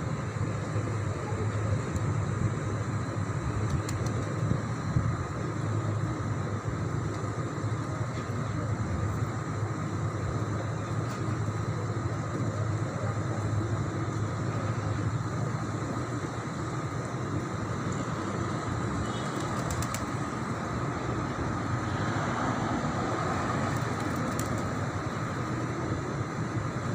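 Steady low rumbling outdoor background noise with a faint steady high tone running through it; no distinct bird calls stand out.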